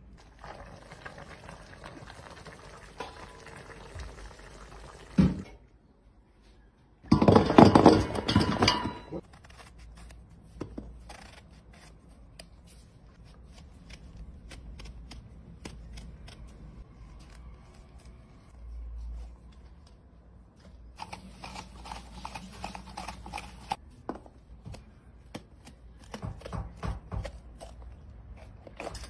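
Hand food-prep sounds: vegetables handled in a metal pot, then a knife cutting into eggplant and pepper, with many small clicks and scrapes. A single thump comes about five seconds in, and a loud two-second burst of noise follows shortly after.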